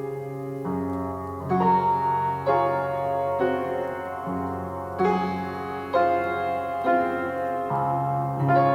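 Slow piano music, a note or chord struck about once a second over held low bass notes.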